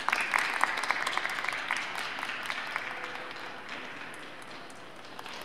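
Audience applause, many hands clapping together, strongest at the start and slowly tapering off.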